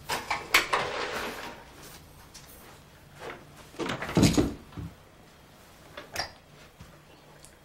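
Knocks and a scrape as a window is handled and shut, then a heavier thump about four seconds in as a person steps down off a bed, followed by a few light clicks.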